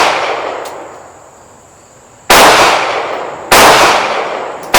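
Gunshots fired one after another: the echoing tail of a shot fired just before, then shots about two and a half and three and a half seconds in and another at the very end, each ringing off over a second or more.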